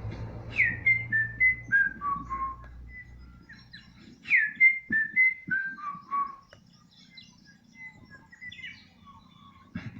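A bird singing a run of clear whistled notes that steps down in pitch from a high downward-swooping first note, given twice about four seconds apart, with faint chirps between.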